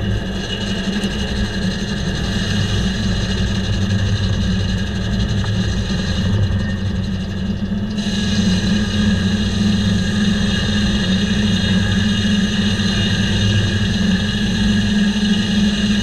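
Diesel-driven circle sawmill running steadily, its large circular blade sawing hemlock as the carriage feeds the cant through, over a constant engine hum. The higher, brighter part of the sound changes about halfway through.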